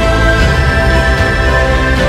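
Background music with steady sustained notes.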